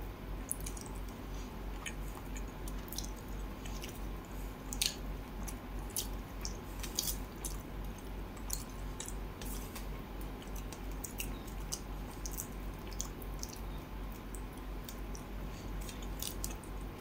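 Close-up wet eating sounds: fingers squishing through fish curry on a steel plate and mouth chewing, with many small scattered clicks over a steady low hum.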